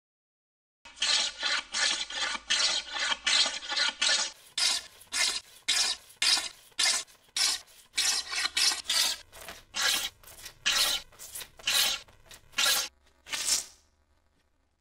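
Small wooden-bodied hand plane taking shavings off a board edge in repeated strokes. A quick run of short strokes comes first, then about twenty longer strokes at roughly two a second, stopping near the end.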